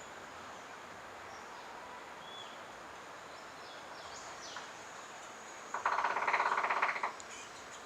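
Male Rufous-winged Woodpecker drumming: one rapid roll of closely spaced strokes about a second long, near the end, over a steady insect whine and faint bird chirps.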